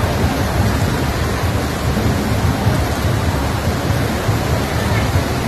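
Heavy rain pouring down steadily: a loud, even hiss with a strong deep rumble under it.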